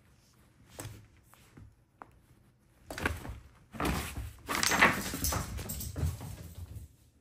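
Puppy scuffling and thrashing with a plush toy on a fabric dog bed: a few faint clicks, then about three seconds in a run of rustling and thumps.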